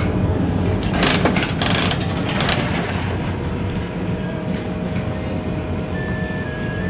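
Coin-operated gumball game machine rumbling as its handle is turned and the gumball rolls along its plastic track, with a burst of clattering about a second in.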